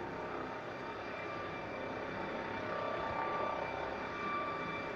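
Helicopter running steadily at a distance: a steady whine over a broad rumble, swelling slightly about three seconds in.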